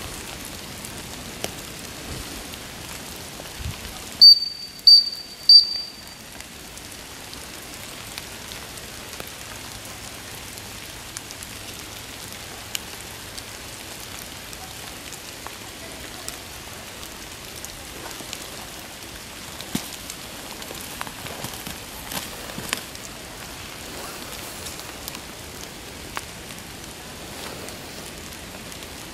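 Three short blasts on a dog whistle, about half a second apart, over a steady hiss of light rain.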